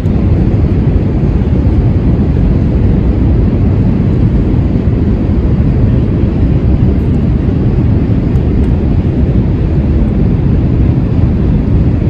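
Loud, steady low rumble with no distinct events, starting abruptly at the beginning.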